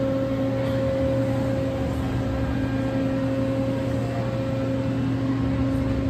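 Steady mechanical hum: a low drone and a higher steady tone over an even wash of noise.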